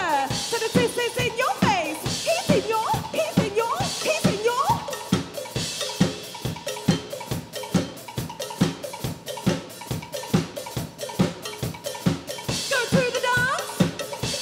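Live band playing, the drum kit driving a steady beat of about four hits a second, with sliding pitched instrument notes over it at the start and again near the end.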